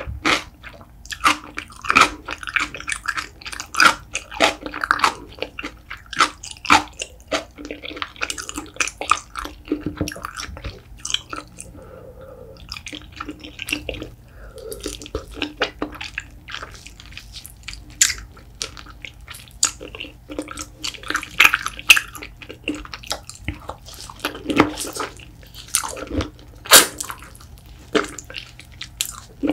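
Close-miked wet, sticky chewing of gelatinous spicy braised beef feet, a dense irregular run of sharp mouth clicks and smacks.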